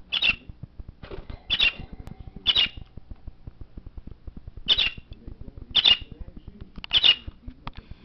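Budgerigar giving six short, sharp chirps, spaced one to two seconds apart, over a constant faint patter of low clicks.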